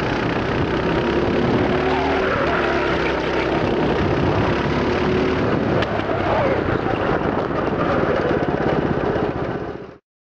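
9 hp kart engine running at lap speed, its pitch rising and falling through the corners, then cutting off suddenly near the end.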